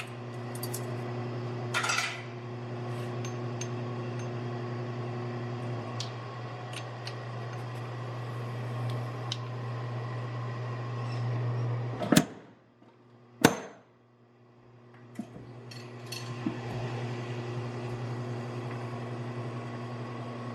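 Two sharp, loud hammer blows on steel about a second and a half apart, a little past halfway through: a top tool being struck to take the bow out of a forged hammer head with the drift set in its eye. Small clinks of steel tools being handled and a steady low machine hum in the shop run underneath.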